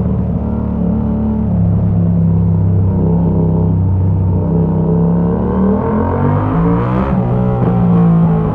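Yamaha MT-07's parallel-twin engine through a Mivv exhaust with the dB killer removed, running under way and rising in pitch as it accelerates, with a brief crack about seven seconds in before it settles again.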